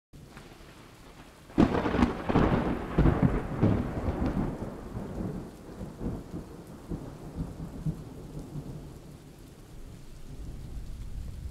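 Steady rain with a sudden clap of thunder about a second and a half in, rumbling on and fading over the next few seconds.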